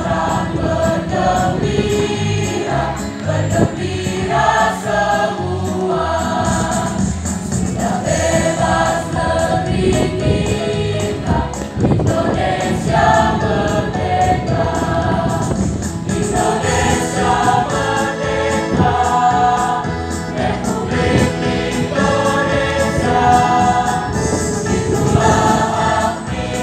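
Mixed choir of boys and girls singing an Indonesian patriotic song, with electronic keyboard accompaniment and a steady beat underneath.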